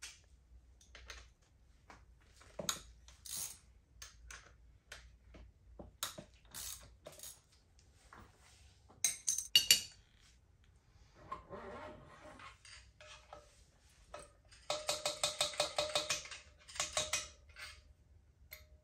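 Metal clinks and knocks of tools and parts as the front wheel of a dirt bike is taken off: axle, spacers and wheel being handled. About three quarters of the way through comes a rapid run of clicks lasting over a second.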